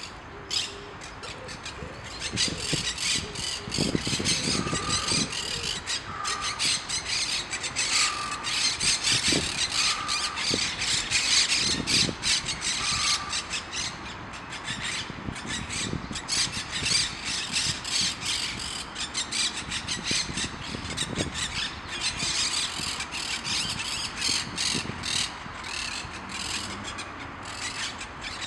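Young monk parakeets chattering with a continuous stream of harsh, rapid, scratchy squawks.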